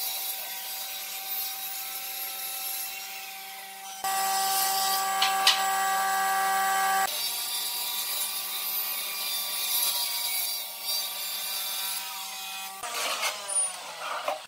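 A woodworking power tool runs with a steady whine while cutting wood, along with a hissing, rasping cutting noise. The sound changes abruptly at about 4, 7 and 13 seconds in.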